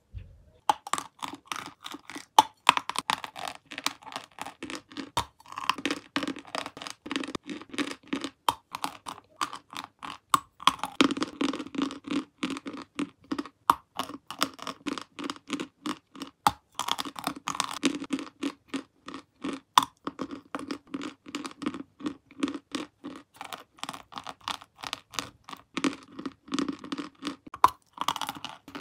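Close-miked biting and chewing of a lump of white chalk: a dry, gritty crunch of dense rapid crackles in a chewing rhythm, with a sharper snap at each fresh bite several times over.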